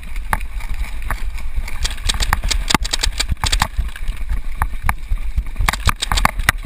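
Running footsteps and gear knocking on an action camera worn by a running paintball player: an uneven run of sharp clicks and thumps over a steady low rumble.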